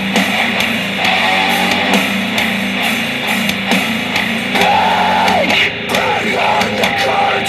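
Loud rock music with a heavy, distorted edge, played back through a Star Wars Millennium Falcon Bluetooth speaker and picked up by microphone.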